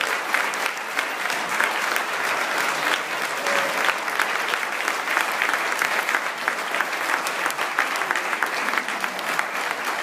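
Audience applauding, a steady dense clapping.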